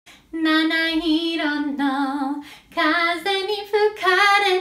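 A woman singing solo and unaccompanied, holding long notes with a slight wobble, in two phrases with a short break about halfway through.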